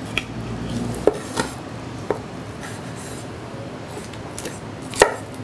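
Chef's knife cutting a chicken breast off the bone on a wooden chopping board: a few scattered sharp knocks of the blade meeting the board, the loudest near the end.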